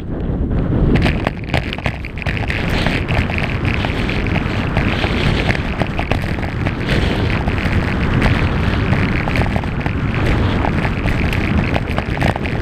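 Wind buffeting a GoPro Hero 3's microphone at skiing speed, a heavy rumble, over the hiss and crackle of skis scraping across packed snow.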